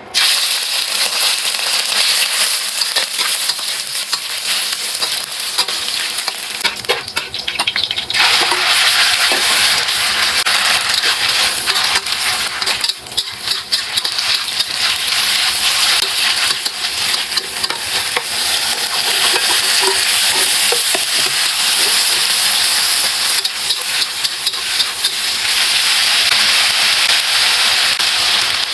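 Food frying in hot oil in a pan, sizzling steadily with crackles as it is stirred. The sizzle grows louder about eight seconds in.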